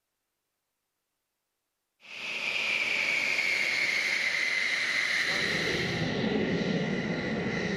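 Silence for about two seconds, then the KAAN fighter jet's engines whining on the runway: a strong high tone that slowly falls over a loud hiss, with a lower rumble growing about five seconds in.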